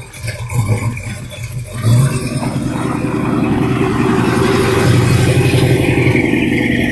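Early-1970s Ford Mustang's engine as the car pulls away and accelerates. A steady, rapidly pulsing exhaust note comes in loudly about two seconds in and holds.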